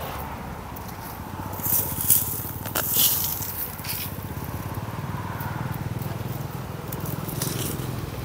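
Hand hoe scraping and chopping into dry sandy soil and grass roots while weeding: a few short, sharp scrapes and crackles at irregular moments, over a steady low rumble.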